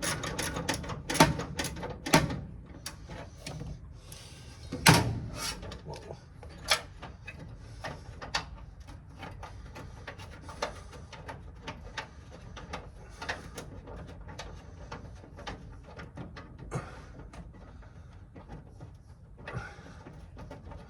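Socket ratchet and tools working the radiator mounting bolts loose: irregular metal clicks and clanks, with a few louder knocks in the first five seconds.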